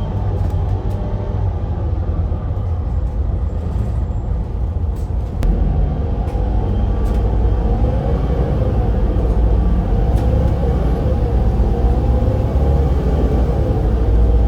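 Volvo B7RLE bus's six-cylinder diesel engine and ZF Ecolife automatic driveline running under way, a steady low rumble whose engine note wavers up and down, with a few light rattles. It gets slightly louder about five seconds in.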